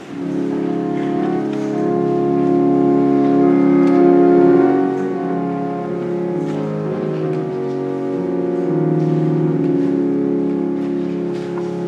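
Church organ playing slow, sustained chords. It opens the music for the preparation of the gifts, which follows the prayer of the faithful.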